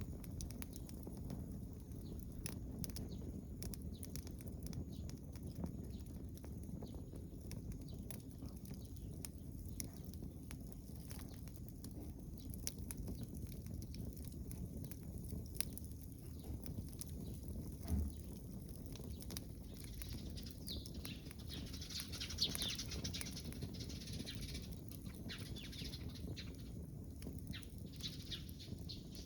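Wood bonfire crackling, with scattered sharp pops over a steady low rumble. A single thump comes about eighteen seconds in, and a high hiss rises for several seconds past the twenty-second mark.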